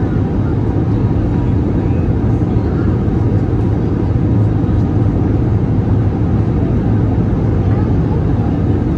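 Airbus A320neo cabin noise heard from a window seat over the wing: a steady low rumble of the turbofan engines and airflow during the climb after takeoff.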